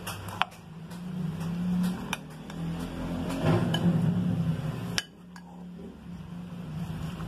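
A metal spoon stirring and folding a creamy fruit-and-carrot salad in a glass bowl, with sharp clinks of the spoon against the glass, the loudest about half a second in and about five seconds in. A steady low hum runs underneath.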